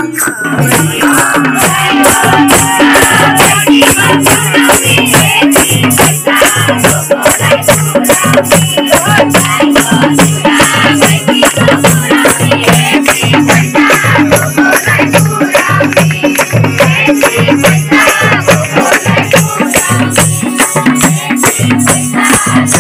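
Live Nepali folk song sung by a group, with hand-clapping and percussion keeping a fast, steady beat.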